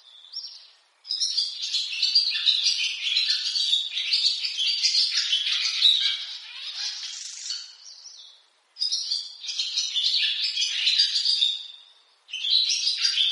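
Barn swallow twittering song: fast, chattering warbles in long bouts, starting about a second in, again about nine seconds in and once more near the end, with short breaks between.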